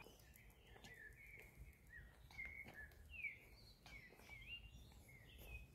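Faint birdsong: a songbird singing a run of short notes that glide up and down, several a second, over a low background rumble.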